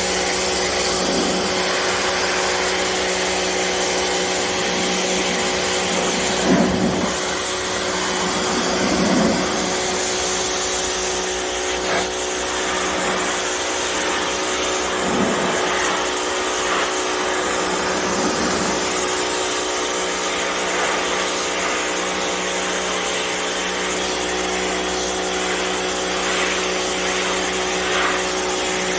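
Pressure washer running continuously: a steady hiss of the water jet over a constant motor hum.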